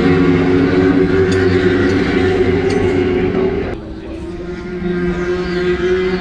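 Racing superbike engines drone steadily as a pack laps the circuit, muffled by the viewing-room glass. The sound drops away suddenly a little under four seconds in, then builds again as more bikes come through.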